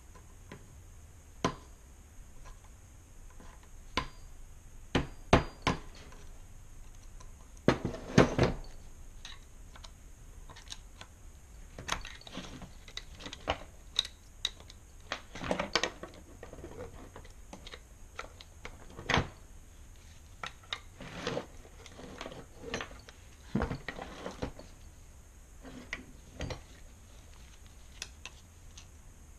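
Hand tools clicking and clattering against a 66cc two-stroke engine's crankcase as its screws are worked out: irregular sharp clicks with a few short bursts of rattling, the loudest about 8 seconds in and again around 15 seconds.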